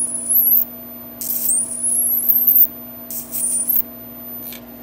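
High-voltage arc drawn from a 1940s RCA flyback transformer on a homemade 2N3055 driver, sizzling in three bursts with a high, wavering whine. A steady low hum runs underneath.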